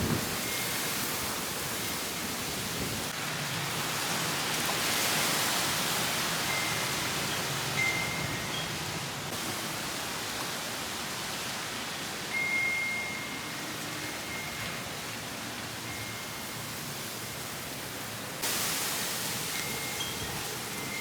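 Gusty wind rushing steadily, swelling about a quarter of the way in. A few faint short high chirps sound now and then.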